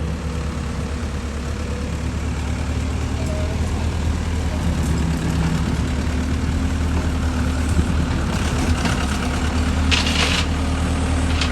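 Mini excavator's diesel engine running steadily, with a brief hiss about ten seconds in.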